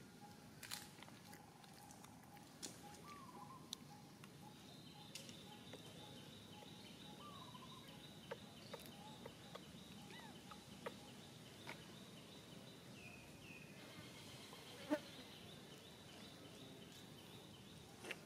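Faint outdoor ambience carried by an insect's steady pulsing high trill that starts about four seconds in, over a fainter lower trill, with a few short chirps and scattered small clicks.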